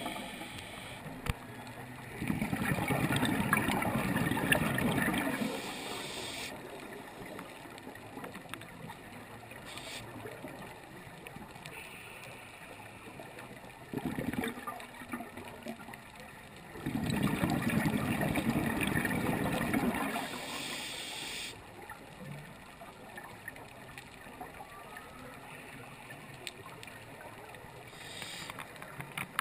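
Water gurgling and bubbling, swelling into two louder spells of about three seconds each, some fifteen seconds apart.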